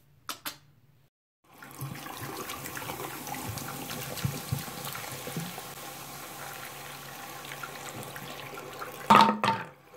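Tap water running into a sink while fizzy sparkling water is poured out of a bottle into the drain, splashing and foaming steadily. A short, loud clunk comes near the end.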